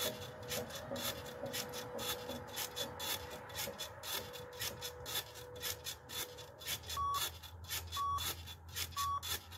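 Rebounder (mini trampoline) springs and mat creaking and rasping with each bounce, about three a second. Near the end, three short beeps a second apart, like an interval timer counting down the end of a work set.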